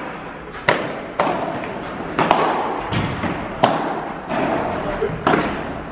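Padel rally: a string of sharp hits as the ball is struck by solid padel rackets and bounces off the court and glass walls, roughly one every half second to second, each followed by the echo of a large hall.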